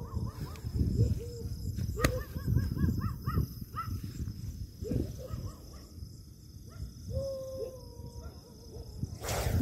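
Indian spectacled cobra, reared with its hood spread, hissing in repeated short breathy bursts, with the loudest hiss just before the end. Repeated whistle-like calls sound in the background.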